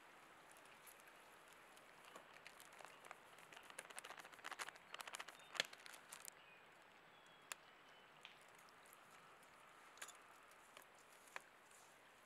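Faint crackles and light clicks of camp cooking: a dense patch of small crackling a couple of seconds in, then a few scattered ticks.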